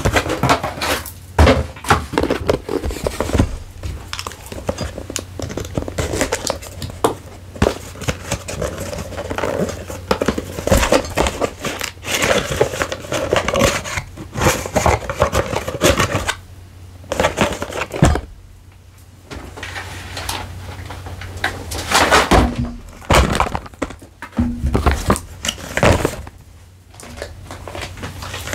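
Packaging for a Canon EOS R8 camera being handled and opened close to the microphone: an irregular run of rustles, scrapes, taps and knocks, with a short lull about two-thirds of the way through.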